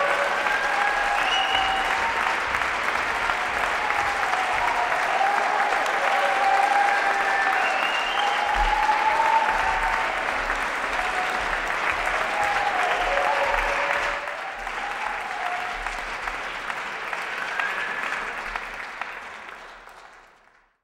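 Audience applauding, with a few voices rising over the clapping. The applause thins about 14 seconds in and fades away near the end.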